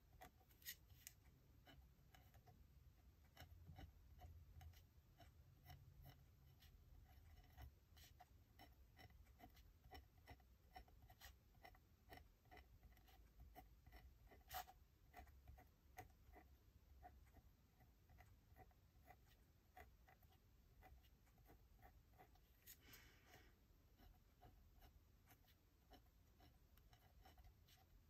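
Faint scratching of drawing on paper, with many small, light clicks scattered through it.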